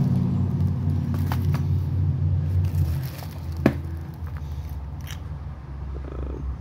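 Cellophane wrapping and cardboard firework boxes crinkling and scraping as they are handled and set down, with a few short clicks, the sharpest about three and a half seconds in. Under it a steady low hum that drops in level about three seconds in.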